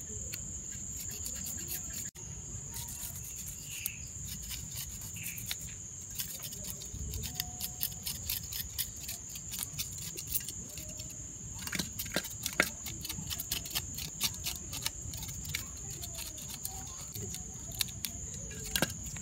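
A knife scraping the scales off a pearl spot fish (karimeen), making rapid scratchy clicks that grow busier about a third of the way in. A steady high insect trill, like crickets, runs underneath.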